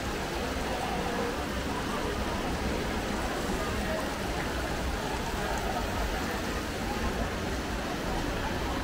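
Fountain water splashing in a steady rush, with people's chatter mixed in.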